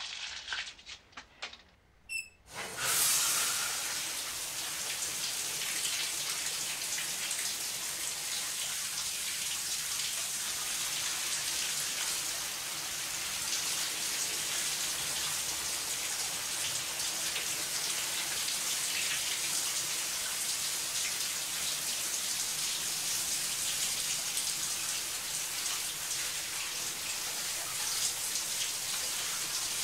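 Shower running: a steady hiss of water spray on tile that starts about two and a half seconds in, just after a brief high squeak.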